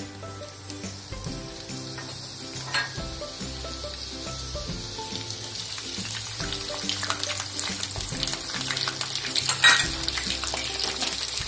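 Chopped onion, ginger and green chilli sizzling in hot oil in a wok, the sizzle growing steadily louder as they fry. A sharp clack sounds near the end.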